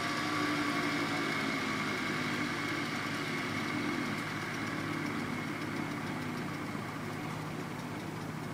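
Hobart 7.5 hp, 3,450 RPM three-phase electric motor coasting down with its power switched off, a steady machine whir that slowly fades.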